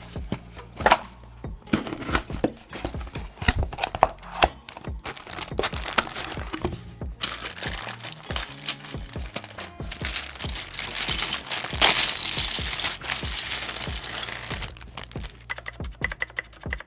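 A keycap set being unboxed: scattered clicks and knocks of the packaging and plastic parts being handled, with several seconds of crinkling and rustling around the middle, over background music.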